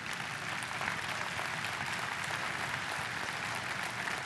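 Large audience applauding, a dense steady patter of many hands clapping.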